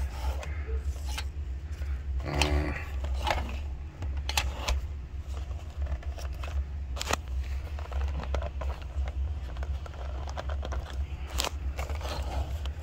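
Handling noise: scattered clicks and scrapes of camcorder gear being picked up and turned over, over a steady low hum.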